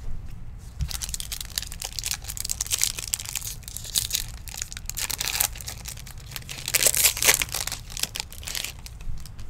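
Trading card pack wrapper being crinkled and torn open by hand, with the crackling loudest about seven seconds in.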